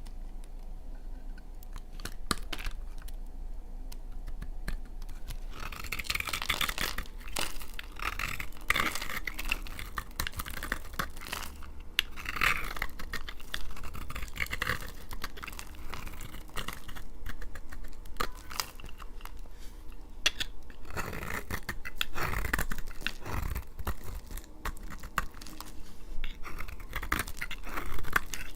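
Knife cutting through dry laundry soap: a few sharp clicks at first, then repeated crisp crunching and scraping as the blade goes through the hard, dry soap.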